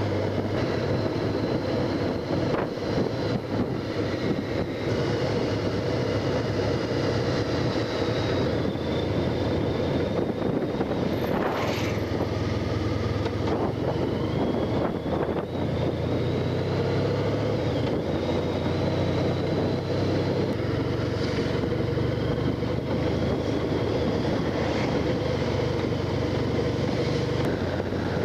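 Honda Crosstourer motorcycle's V4 engine running steadily at cruising speed, under wind and road noise.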